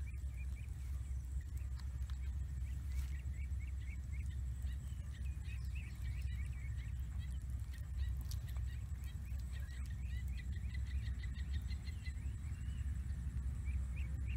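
Small birds chirping in short, repeated calls, with a quick run of rapid notes about two-thirds of the way through, over a steady low rumble.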